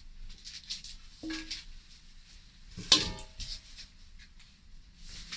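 Stainless steel mixing bowls and a silicone spatula handled on a kitchen counter: light scrapes and small clinks, with a loud metallic clank about three seconds in as a bowl is set down, ringing briefly.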